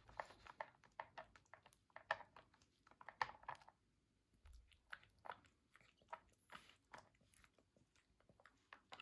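A dog chewing and crunching dry treats in a string of short, irregular crunches, which thin out after a few seconds.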